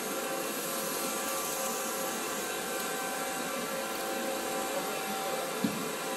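Steady whirring hum of running shop machinery: many faint steady tones over an even hiss. A single short knock about five and a half seconds in.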